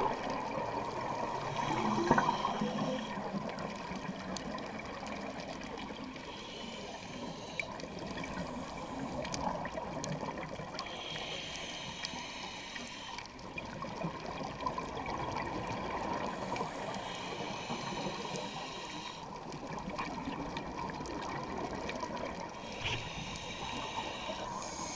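Scuba regulator breathing underwater: a steady bubbling rush of exhaled air bubbles, broken every four to five seconds by a short hiss of inhalation through the regulator.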